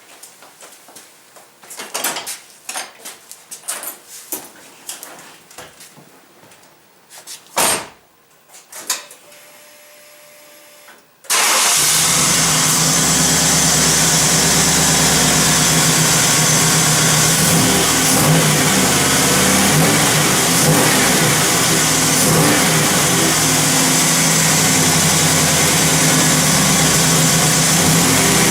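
A few scattered clicks and knocks, then a faint steady hum, then about eleven seconds in the Firebird Trans Am's LT1 V8 starts abruptly and runs steadily. It is running on a newly replaced fuel injector, the fix for a misfire, and the owner finds it runs great.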